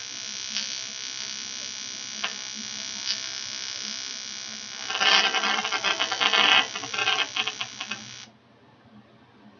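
TIG welding arc buzzing steadily, with louder crackling for a couple of seconds in the middle. The arc cuts off abruptly about eight seconds in.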